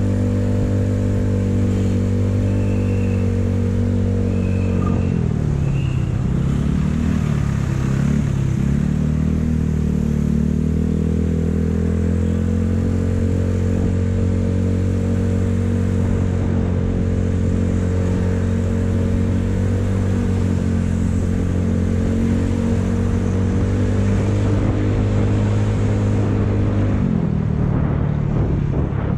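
Motorcycle engine running steadily at road speed. Its note dips and comes back twice between about five and nine seconds in, and drops again near the end.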